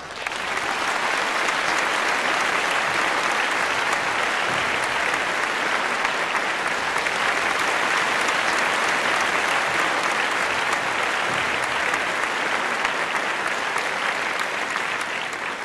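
Audience applauding steadily, starting all at once and holding at full strength.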